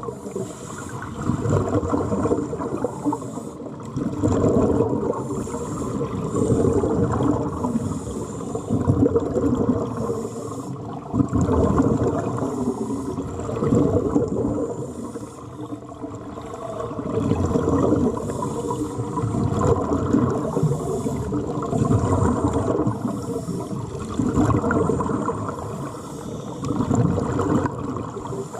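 Fish splashing, slurping and thrashing at the water surface as they feed, a continuous churning that swells and eases every few seconds.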